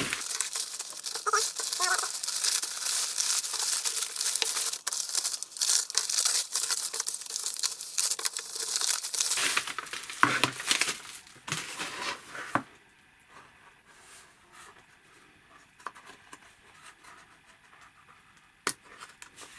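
Packaging being crumpled and torn open, a dense crinkling and tearing for about twelve seconds, then quieter handling with one sharp click near the end.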